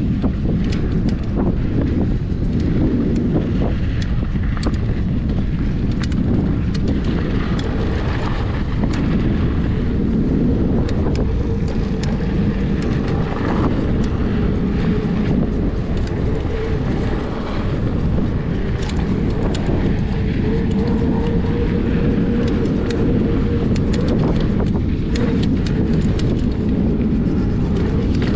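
Wind buffeting the microphone on a mountain bike ride, a loud steady rumble, with scattered clicks and rattles from the bike over rough trail.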